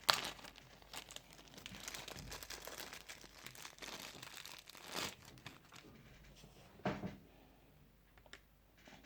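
Plastic packaging crinkling and rustling as it is handled, with a click at the start and louder crackles about five and seven seconds in.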